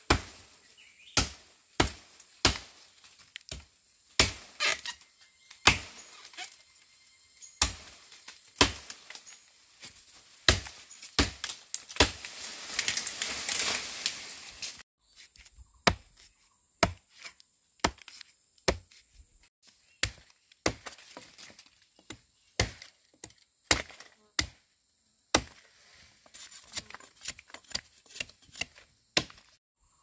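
A blade chopping into bamboo: sharp single strikes at an uneven pace, roughly one a second with short pauses. A steady rasping noise runs for about three seconds in the middle.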